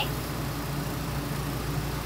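Steady low mechanical hum with an even hiss, like machinery or ventilation running.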